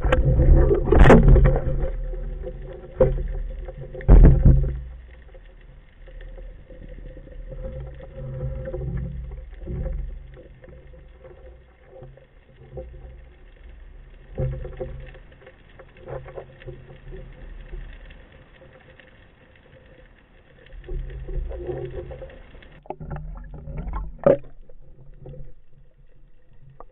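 Muffled water movement and knocks heard through an underwater camera's housing, with loud surges of water and a few sharp knocks in the first few seconds and again near the end, and quieter sloshing with a faint steady hum between.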